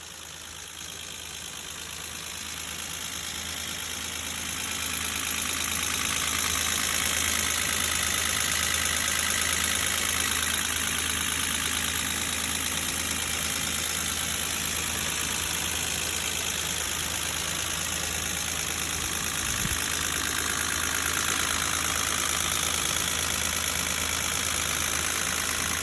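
Mercedes-Benz M110 twin-cam straight-six engine idling with lifter noise from the valvetrain. It grows louder over the first five seconds, then runs steadily.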